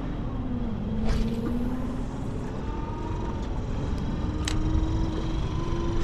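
Steady low rumble of wind and choppy water around an open boat, with a faint motor hum whose pitch drifts slowly upward and a couple of faint clicks.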